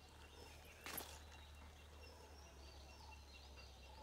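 Near silence: quiet rural morning ambience with faint, thin, high bird calls and one short rustle about a second in.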